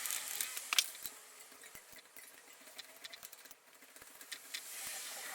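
Faint, scattered clicks and light scraping of small metal parts as a small washer is worked off the axle of a Schwinn Varsity bicycle's wheel hub.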